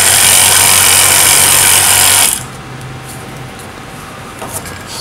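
Vacuum pump running with a steady hum and hiss while evacuating a glass vacuum jar, switched off suddenly about two seconds in. A few faint clicks from handling the jar lid follow near the end.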